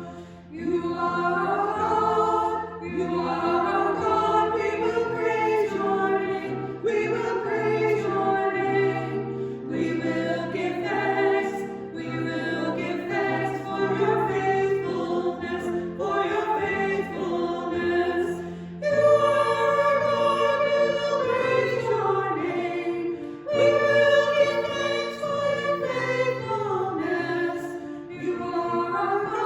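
Choir singing a hymn in several voice parts, over held bass notes that change every few seconds.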